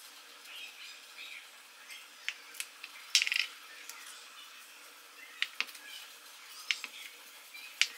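Sharp, scattered clicks and taps of a cookie cutter and kitchen utensils against a cutting board as shapes are cut from food, with a quick rattling run of taps about three seconds in.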